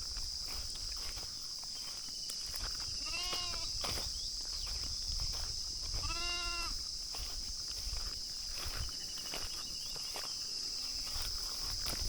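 Sheep bleating twice, two wavering calls about three seconds apart, the second longer and louder, over a steady high insect drone.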